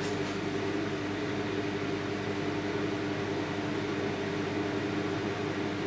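Steady machine hum: an even whoosh of running air with a couple of steady low tones, like a fan or ventilation unit running.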